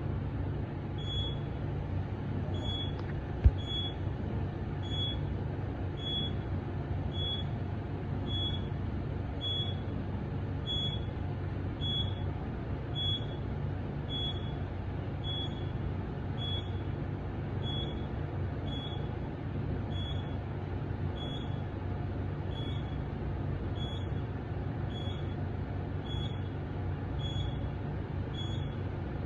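Otis traction elevator cab running down the shaft: a steady low hum and rumble, with a short high-pitched beep repeating about every 0.7 seconds and a single sharp click about three and a half seconds in.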